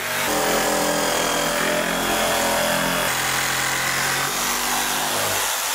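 An electric power tool running steadily under load, its motor whine shifting a little in pitch, dying away near the end.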